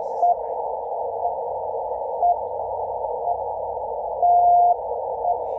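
RWM Moscow shortwave time signal on 14996 kHz, received in CW mode on a Yaesu FTdx10: a short beep every second over static hiss narrowed by a 500 Hz filter. About four seconds in comes one longer beep, about half a second, the station's minute marker.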